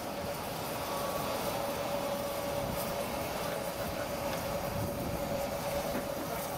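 Locomotive turntable turning a 15-inch-gauge steam locomotive: a steady whine over a constant hiss.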